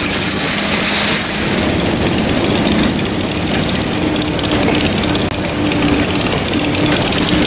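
Steady rushing of a fast, swollen river, with the hum of an excavator's engine running underneath.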